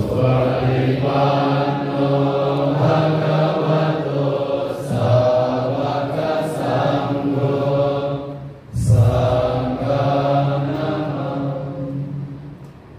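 Buddhist monks chanting together in low, steady voices, in two long phrases with a short break about nine seconds in; the chant fades out shortly before the end.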